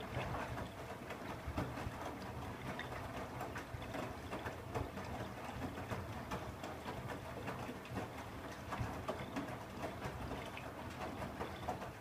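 Siemens iQ700 front-loading washing machine on a high-water-level rinse: the drum turns and the laundry sloshes and splashes through the water, with many irregular splashes over a low steady hum.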